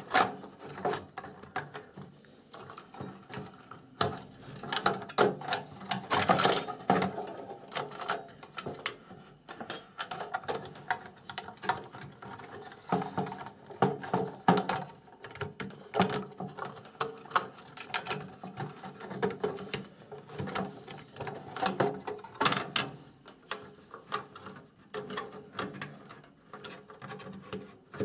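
Irregular clicks, taps and rattles of hands handling circuit boards, connectors and wiring inside an open metal instrument chassis, as a part is refitted and cables are plugged back in.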